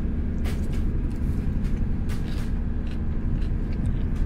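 Houseboat engine running with a steady low rumble and hum, the boat under way. A few faint light clicks sound over it.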